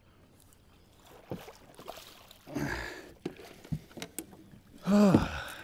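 Landing a striped bass with a net from a small boat: scattered light knocks and handling clatter, with two short wordless grunts, the louder one near the end.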